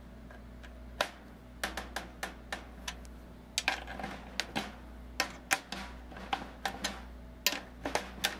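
Fingertip taps on the bottom head of a 14x6.5 birch/walnut snare drum, struck near one tension rod after another to check the tension around the head. The taps are short and irregularly spaced, about a dozen. Some spots sound looser than others, so the tension is still uneven.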